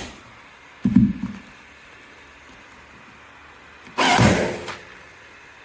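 Handling noises from a cordless electric staple gun that keeps jamming: a dull knock about a second in, then a longer sliding clatter about four seconds in.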